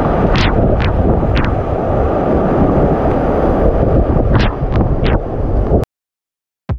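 Steady loud rushing of a waterfall, with a few brief high-pitched sounds over it; it cuts off suddenly about a second before the end.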